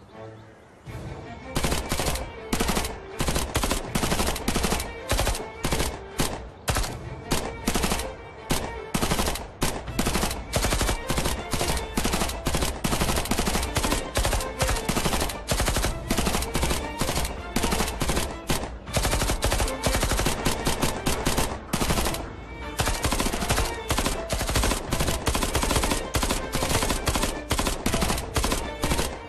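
Rapid gunfire from several handguns and a submachine gun, shots coming thick and fast and overlapping. It starts about a second and a half in and eases briefly around three quarters of the way through.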